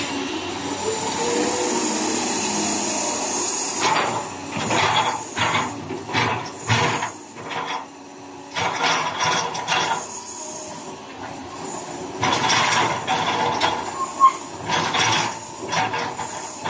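Doosan DX225LC crawler excavator working: its diesel engine and hydraulics run steadily for a few seconds, then give a series of irregular loud bursts with short gaps as the boom and bucket push down and lever the machine's tracks up off the ground.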